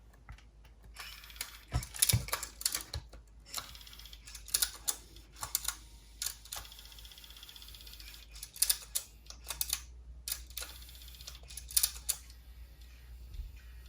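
Irregular light clicks from a cassette Walkman's buttons and tape mechanism being operated, over a faint hiss that stops about twelve seconds in. The player's logic-controlled mechanism is faulty and switches modes erratically.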